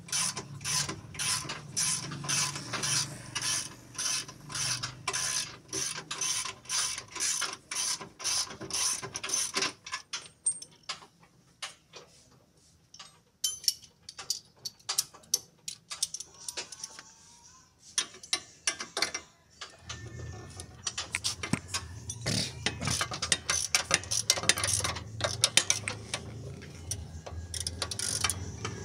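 Hand ratchet wrench clicking in a steady run of about three clicks a second as a fastener is turned. Partway through, the run breaks off for about ten seconds, leaving a few scattered clicks and knocks, then the ratcheting resumes over a low steady hum.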